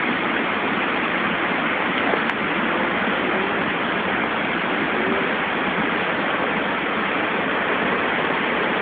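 Floodwater rushing in a steady, heavy torrent. It comes from the soundtrack of an online video played back, so it sounds muffled, with the top cut off.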